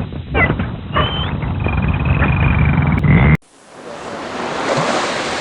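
Dolphin whistles: several high whistles and chirps, one sweeping sharply upward about a second in, over a low rumble. About three and a half seconds in it cuts to the even hiss of ocean waves.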